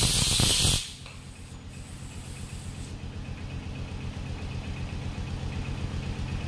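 Compressed air hissing loudly from the air hose at the truck inner tube's valve, cutting off suddenly about a second in. After that, a steady low machine hum.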